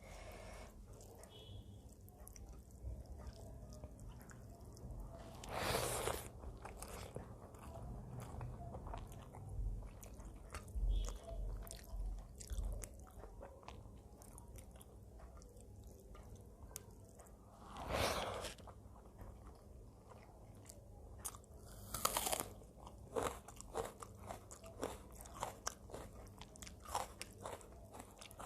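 Close-up chewing and mouth sounds of a person eating a meal of curry and rice: wet smacks and small clicks, with a few louder bursts along the way.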